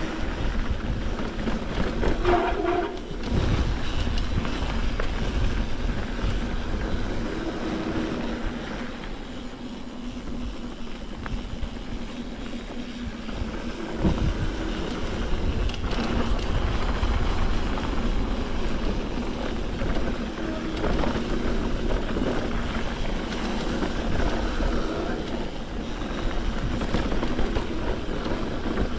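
A mountain bike riding down a dirt trail: wind rushing over the microphone, tyres rolling over rough ground and the bike rattling, with a few sharp knocks from bumps.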